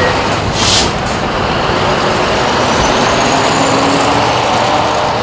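Scania V8 truck with a semi-trailer passing close by and pulling away: engine running under tyre and road noise, with a short hiss about half a second in and the sound easing slightly near the end.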